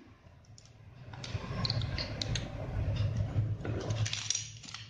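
Plastic LEGO bricks being handled and pressed together: scattered light clicks and rubbing that begin about a second in.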